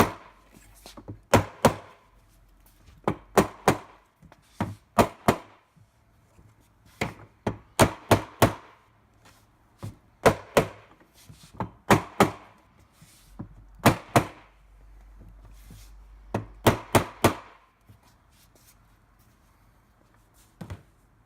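Mallet striking a plastic utility-cart tray to seat it firmly onto its legs: sharp knocks in quick groups of two or three, a group every second or two, which stop a few seconds before the end apart from one last knock.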